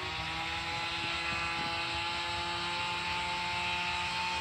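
A steady engine drone, its pitch holding nearly constant throughout.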